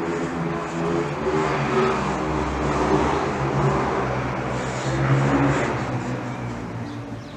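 A car driving past: a steady engine hum with road noise swelling louder through the middle and fading away near the end.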